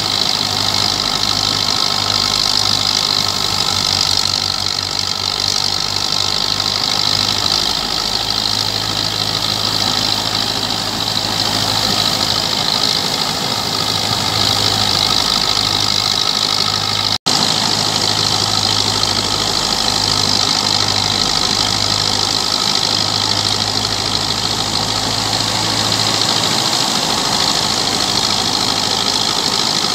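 Belarus 510 tractor's diesel engine running steadily under load, powering a threshing machine whose drum and blower add a dense, even hiss over the engine. The sound drops out for an instant a little past halfway.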